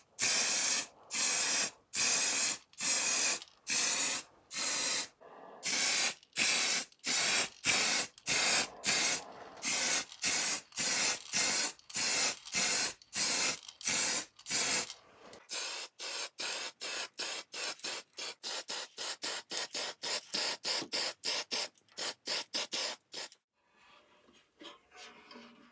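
Aerosol spray-paint can spraying blue paint in short, repeated bursts of hiss, roughly one or two a second. After about fifteen seconds the bursts become quicker and fainter, and they stop about 23 seconds in.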